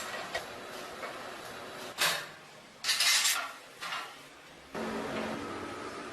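Metal parts and tools clinking and knocking, with a louder rattling clatter about three seconds in. Near the end a steady motor hum starts suddenly and keeps going.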